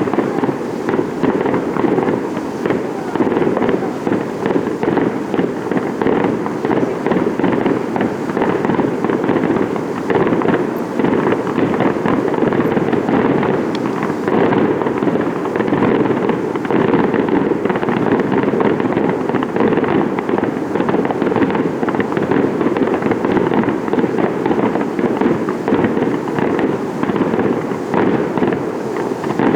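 Fireworks show going off in a dense, unbroken barrage of bangs and crackling, with no pause between the reports.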